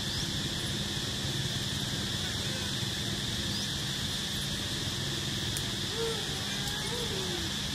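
Steady, high-pitched insect drone over a low background rumble, with a few faint short gliding calls near the end.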